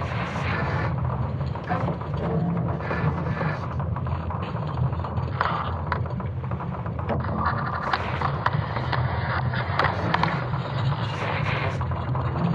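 Sonification of Earth's magnetic field during the Laschamp reversal, built from recordings of creaking wood and falling rocks: a steady deep rumble with scattered cracks and creaks over it.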